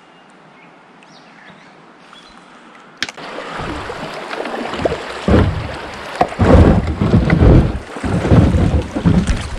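Kayak running into whitewater rapids: rushing, splashing water, faint at first, then loud and churning from about three seconds in, with uneven low buffeting surges.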